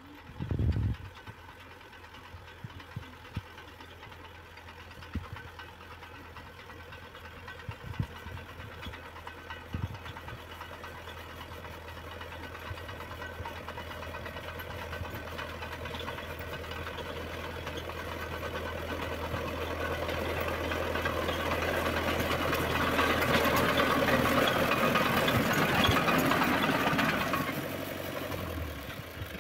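Fiat 605 crawler tractor's engine running as it works a vineyard row with a cultivator in the ground, growing steadily louder as it approaches and loudest about three-quarters through, then dropping suddenly near the end. A brief thump at the very start.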